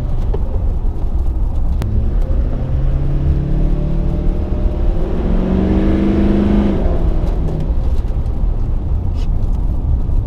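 A 2012 LML Duramax 6.6-litre V8 turbodiesel heard from inside the truck's cab while driving, over steady engine and road rumble. From about two and a half seconds in the engine note climbs steadily as the truck accelerates, then drops away a little before seven seconds.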